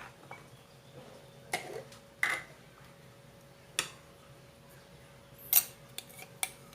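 Kitchen utensils clinking and tapping against dishware, about six separate sharp clicks at uneven intervals, the loudest a little past halfway.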